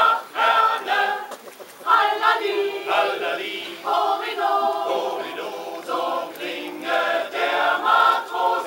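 Mixed choir of men's and women's voices singing together without instruments, in short phrases separated by brief breaks.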